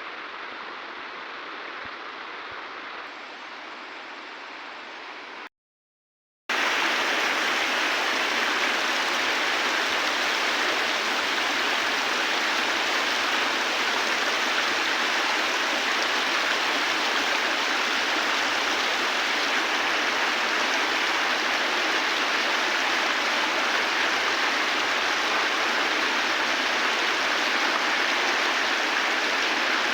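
Flowing river water, a steady rush: softer for about five seconds, then a second of silence, then louder for the rest.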